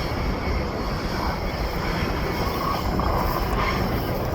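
A train running by with a steady rumble, with faint high tones coming and going.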